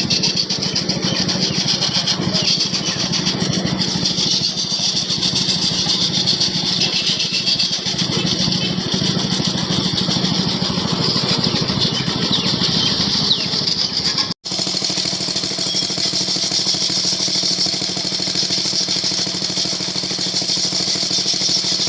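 Motorcycle engine running at a steady pace while riding, with a constant hiss of wind and road noise. The sound drops out for an instant about two-thirds of the way through.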